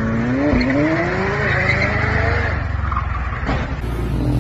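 McLaren 720S's twin-turbo V8 accelerating hard. Its pitch dips briefly about half a second in, then climbs steadily for about two seconds before the sound cuts off abruptly near the end.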